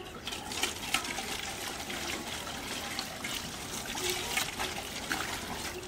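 Water trickling from an outdoor tap into a steel bowl while steel dishes are washed, with a few sharp clinks of steel utensils knocking together.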